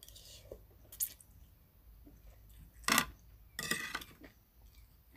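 Metal spoon and fork clinking against plates and a serving tray: a sharp clink about a second in, the loudest near three seconds, then a short run of ringing clinks.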